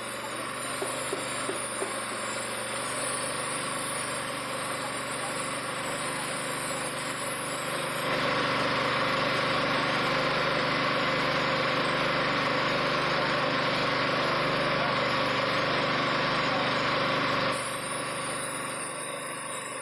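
2011 Kia Picanto engine running steadily at idle during an engine flush. From about eight seconds in, a louder rushing noise rises over it for about ten seconds, then drops back to the idle.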